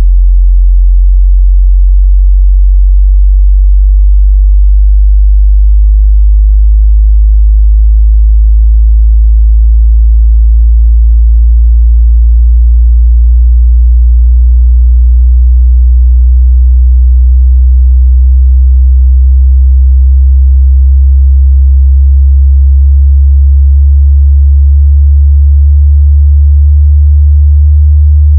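Loud, deep bass test tone gliding slowly and steadily upward in pitch: a low-frequency sweep from a car audio judging disc.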